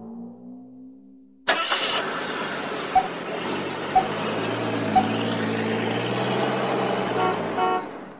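A drum hit fades out. About a second and a half in, a car engine starts and runs steadily. Three short beeps come a second apart over the engine, and a quick run of clicks comes near the end.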